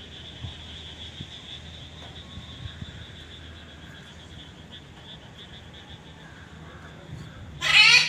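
Light rain with a steady, fast high-pitched trill in the background, then near the end one loud, harsh macaw scream.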